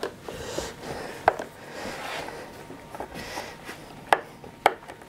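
Hand screwdriver driving a small screw into a wooden guitar body: sharp clicks of the tip in the screw head, once about a second in and three times near the end, with soft scraping between.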